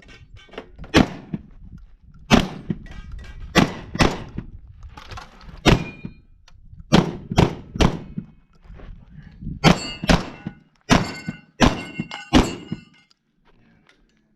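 Shotguns firing a rapid string of about fifteen shots in quick clusters, with short pauses between. Several shots, mostly in the second half, are followed by a brief metallic ring from struck steel targets.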